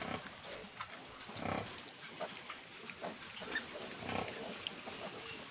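A sow and her newborn piglets at suckling, making faint, short grunts and squeaks scattered every second or so.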